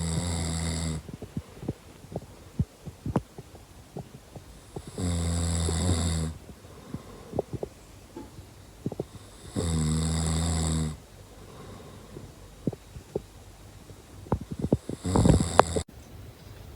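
Domestic cat snoring in its sleep: a low, pitched snore of about a second, repeating roughly every five seconds, with faint clicks in the pauses between snores.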